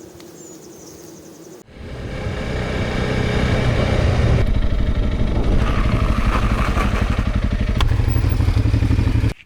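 Bees buzzing faintly, then, about a second and a half in, a motorcycle engine running under way with wind noise comes in suddenly. It builds over a couple of seconds, holds steady and cuts off abruptly near the end.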